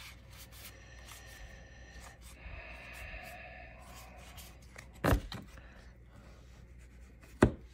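Magic: The Gathering trading cards being handled and fanned in the hands, with faint sliding and rustling of card stock. A sharp knock comes about five seconds in, and a shorter, sharper click near the end.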